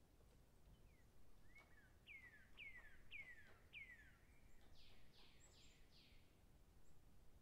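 Faint songbird singing: about four clear whistled notes, each sliding down in pitch about half a second apart, then a few higher, quicker falling notes.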